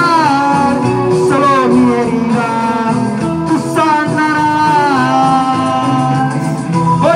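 A man singing through a handheld microphone over backing music, holding long notes that bend in pitch.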